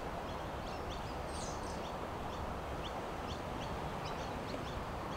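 Small birds chirping in short calls, about one or two a second with a little burst about a second and a half in, over a steady low rush of wind.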